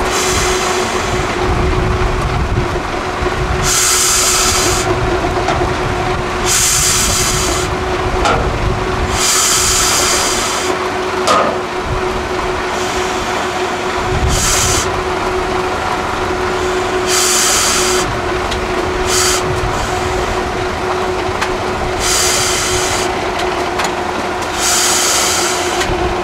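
Truck-trial truck's diesel engine running under load with a steady whine while the truck crawls through deep mud, broken by short bursts of hissing every two to three seconds.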